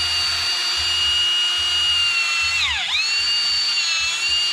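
Drill spinning a brass wire wheel brush against the engine block casting to clean a freeze plug bore: a steady high whine that dips in pitch briefly about two-thirds of the way through as it bogs under load, then spins back up.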